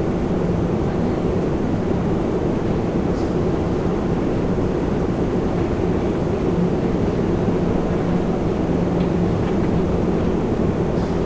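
Metro escalator running: a loud, steady mechanical rumble with a low, even hum that holds without a break.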